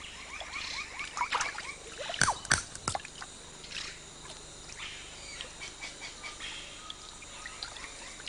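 Squeaky animal chirps and short rising whistles, with a few sharp clicks about two to three seconds in, then fainter scattered chirps.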